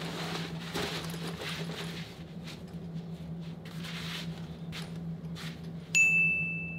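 Rustling and handling noise of a backpack being shouldered and adjusted, over a steady low hum. About six seconds in, a bright, high ding sounds and rings on.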